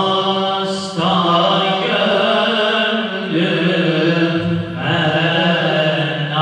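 A group of men singing a Turkish Islamic hymn (ilahi) in unison into microphones, without instruments, in long held, ornamented phrases.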